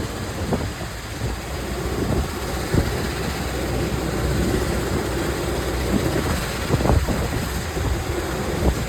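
Excavator's diesel engine running steadily with a low rumble, with a few brief knocks, about 3 and 7 seconds in.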